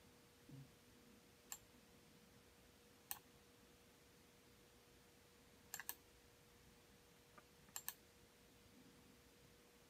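Quiet, sharp clicks from someone working a laptop's controls: a few single clicks, then two quick double clicks. A faint steady hum runs underneath.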